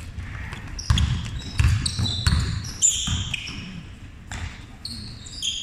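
A basketball bouncing on a wooden court floor, about four thumps between one and three seconds in, with short high squeaks of players' shoes on the floor.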